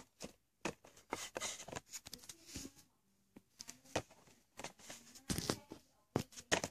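A cardboard Funko Pop box with a clear plastic window handled and turned over by hand: a run of taps, clicks and rustles of cardboard and plastic.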